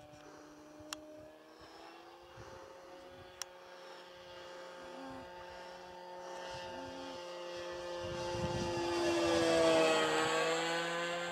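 Radio-controlled model plane's motor whining steadily in flight, growing louder as it flies close past about ten seconds in, its pitch dipping slightly as it goes by. Two short clicks sound near the start.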